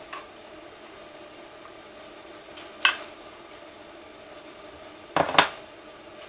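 Clutch basket of a Suzuki DR-Z400 engine clinking against metal parts as it is handled and fitted: a few separate sharp metallic clinks, the loudest a close pair about five seconds in.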